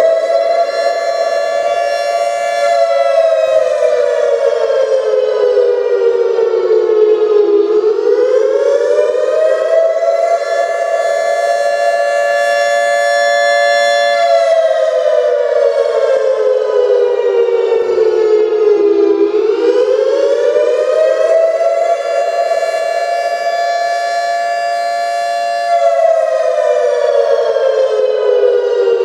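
Federal Sign & Signal 2T22A dual-tone electromechanical warning siren sounding a wail: the pitch climbs, holds high for a few seconds, then slides slowly down, repeating about every eleven seconds.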